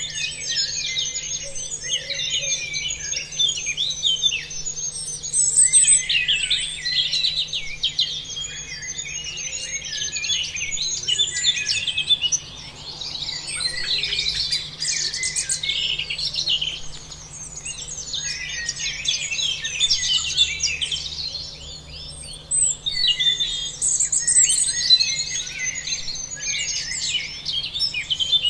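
A dense chorus of many small birds chirping and singing together, with many short, quick calls overlapping, easing off briefly twice before filling in again.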